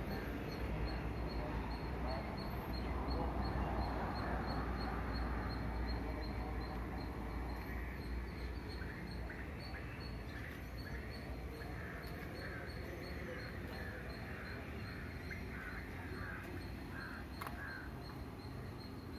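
Birds calling in the background over a low rumble, with a run of short repeated calls in the second half.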